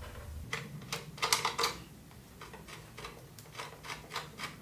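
Light metallic clicks and taps from large M12 nuts being spun off their bolts by hand. The clicks come in irregular little runs from about half a second in.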